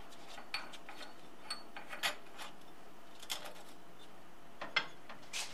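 A few faint, irregularly spaced clicks and light taps over a steady background hiss.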